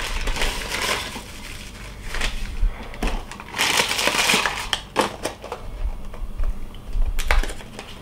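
Mini cereal boxes being opened by hand: the inner plastic bag crinkling and the cardboard tearing, with shredded wheat biscuits tipping into a bowl. The rustling and clicks come in irregular bursts and are loudest about halfway through.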